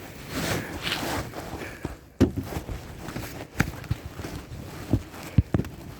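Footsteps in fresh snow, a few separate thuds about a second apart after a stretch of rustling, heard through a jacket pocket with fabric rubbing over the microphone.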